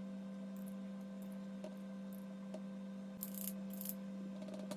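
A steady low hum throughout, with a few faint light taps and two brief soft scrapes of a small metal spoon as it sprinkles ground pistachio onto pastry.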